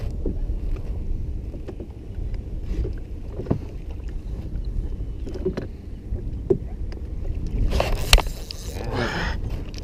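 Wind buffeting the microphone and water lapping against a small open boat, a steady low rumble with scattered light knocks. About eight seconds in comes a sharp knock, followed by a brief wavering whir.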